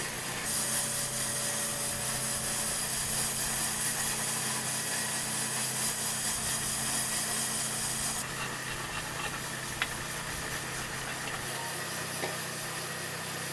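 A loud, steady hiss starts about half a second in and cuts off sharply about eight seconds in, over a steady low machine hum. A single sharp click comes near the ten-second mark.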